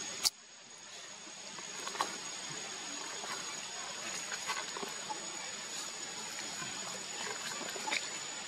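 Steady outdoor forest background: an even hiss with a thin, high-pitched steady whine over it, and a few faint short chirps. A sharp click about a quarter second in, after which the background drops away and fades back up.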